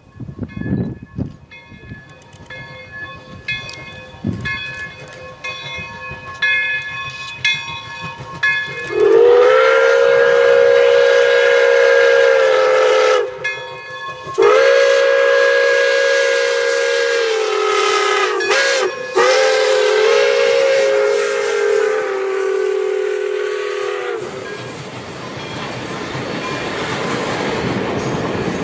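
Pere Marquette 1225, a Lima-built Berkshire steam locomotive, ringing its bell and then blowing its chime steam whistle in the grade-crossing signal: two long blasts, a short one, and a final long one. After the whistle the noise of the approaching train builds.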